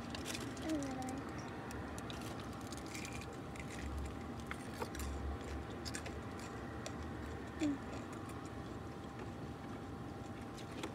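Close-up chewing and mouth sounds of people eating fried chicken sandwiches, with scattered small clicks and a couple of brief vocal sounds, over a steady low hum.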